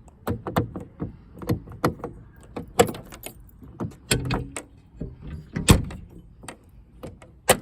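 Rear gate latch and handle of a 1984 Ford Bronco II being worked by hand: a quick run of uneven metal clicks and clunks, with a few heavier knocks, about fifteen in all.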